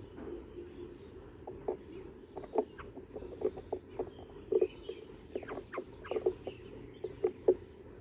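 Bulbuls pecking at crumbs on a stone ledge: irregular sharp taps of beaks on stone, with a few quick chirps about five to six seconds in.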